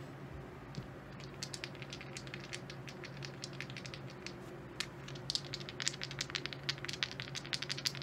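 Light clicks of poker chips being handled on a craps table, then a quicker run of clicks from about five seconds in as a pair of dice is shaken in the hand before a throw.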